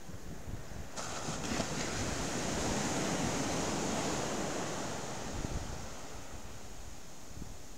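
Sea surf on a sandy beach in stormy weather: a wave breaks about a second in and its wash swells, then fades as it runs up the sand. Wind rumbles on the microphone.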